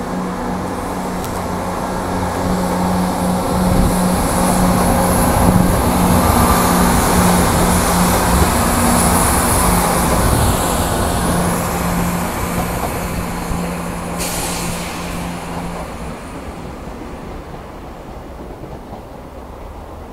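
A train running through the station: a steady low hum with a broad rumble and hiss of wheels on rail, loudest a few seconds in, then fading as it moves away. A short hiss comes about fourteen seconds in.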